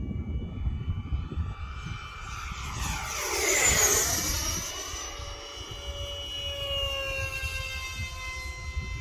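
Electric ducted-fan model jet making a fly-by: its high whine swells to a peak about three and a half seconds in, then drops in pitch as it passes and fades to a steadier motor tone. Wind rumbles on the microphone throughout.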